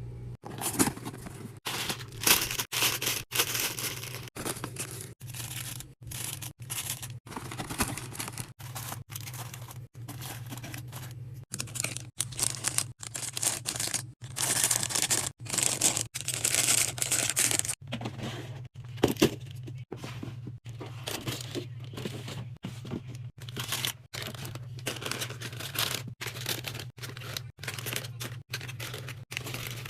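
Plastic snack packaging being torn open and crinkled, in a string of short clips cut abruptly one after another, over a steady low hum.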